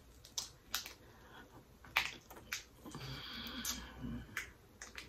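Lobster tail shell being cracked and pulled apart by hand, close to the microphone: several sharp snaps, then a longer stretch of crackling a little past the middle.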